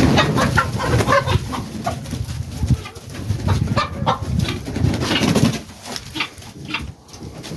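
Guinea fowl and other poultry calling, a busy mix of many short, repeated calls that thins out near the end.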